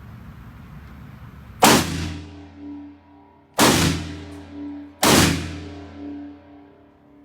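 Three gunshots, about two seconds and then a second and a half apart, each followed by a ringing tone that fades over a second or so.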